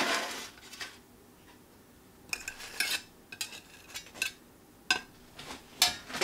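Slotted spatula and toasted soda bread scraping and tapping on a ceramic plate as the toasts are set down. A sliding scrape at the start, then after a quiet second a string of light clicks and taps, the sharpest near the end.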